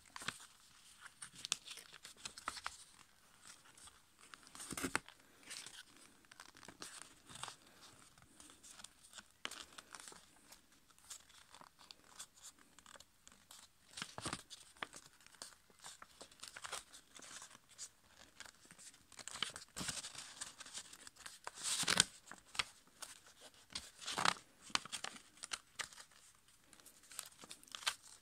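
Copy paper being folded and pressed into tight creases by hand: irregular crinkling and rustling with scattered sharper crackles, the loudest about two thirds of the way through.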